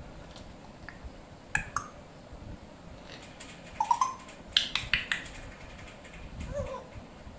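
A pair of African grey parrots making sharp clicks, bunched in a quick series about four to five seconds in, with a couple of short, soft whistled chirps.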